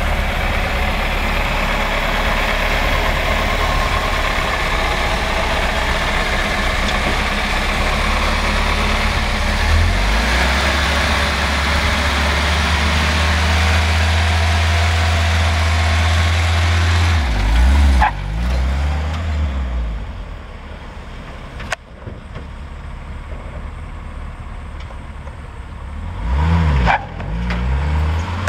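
1988 Chevy S-10 pickup driving, its engine running with a steady drone under road and wind noise. A little over halfway through, the engine note wavers and drops as the truck slows. It then runs more quietly, with a short click and a brief rev near the end.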